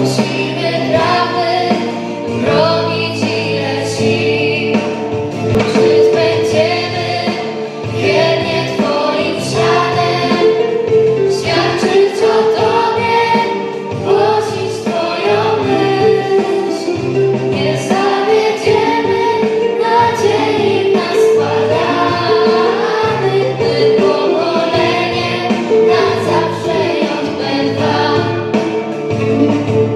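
Choir of young girls singing a song through microphones, over an instrumental accompaniment that holds steady bass notes.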